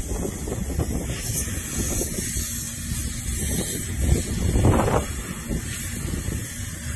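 Air hissing steadily out of a Jeep Wrangler's off-road tire through the valve stem as the tire is aired down.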